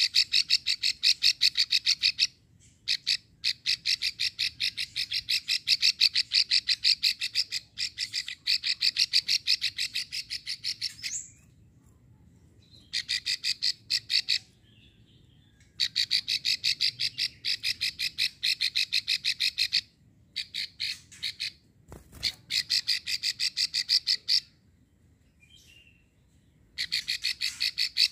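Female plain prinia (prenjak sawah) giving its long rattling 'ngekrek' call, a fast string of sharp clicks. It comes in runs of several seconds broken by short pauses. One soft low thump comes near the three-quarter mark.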